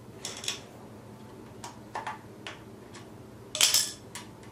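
Scattered metal clicks and taps as a 6 mm Allen T-handle loosens a motorcycle fork's axle pinch bolt, with a louder clatter of hand tools a little before the end.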